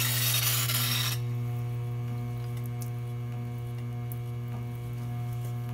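Salvaged treadmill DC motor driving an antique sandstone grinding wheel by flat belt, giving a steady low hum. For about the first second the steel of a drawknife grinds on the wet stone with a loud hiss, which stops abruptly when the blade is lifted off, leaving only the motor hum.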